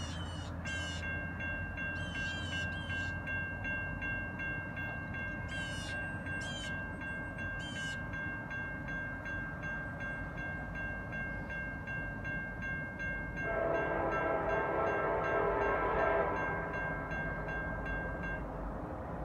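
Railroad crossing bell ringing steadily while the crossing gates come down, stopping about a second before the end. About two-thirds through, an approaching diesel locomotive's air horn comes in underneath it and sounds on for several seconds.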